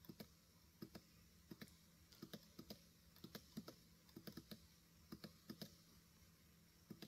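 Faint, irregular clicking of computer input devices, a few clicks a second, many coming in quick pairs.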